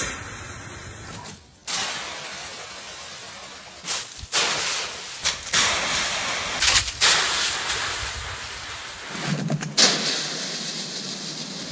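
Dry autumn leaves rustling and crunching as a dog leaps into and burrows through a big leaf pile, in loud uneven bursts. The sound changes abruptly several times as one short clip cuts to the next.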